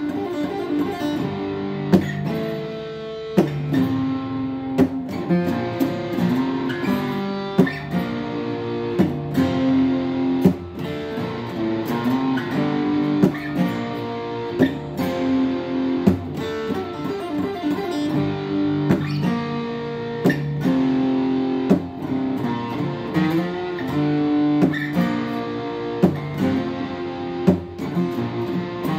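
Acoustic guitar played solo, chords and single-note lines ringing and changing every second or so, with sharp percussive strummed accents now and then.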